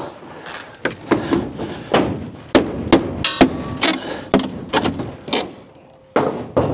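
Wooden shipping-crate boards knocking and clattering, a run of sharp wooden knocks as the nailed crate walls are pulled apart.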